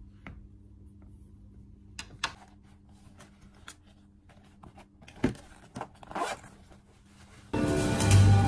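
A laptop charger and its cable are handled and packed into a fabric pouch: scattered light knocks, rustling and scratchy scraping. Loud music starts abruptly near the end.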